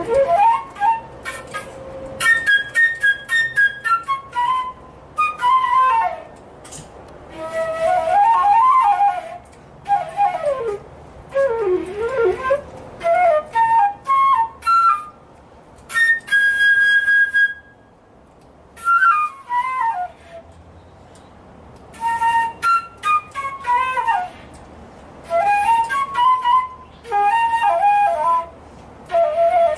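Solo silver concert flute playing quick melodic phrases, with runs that rise and fall, one long held high note about halfway through, and short pauses between phrases.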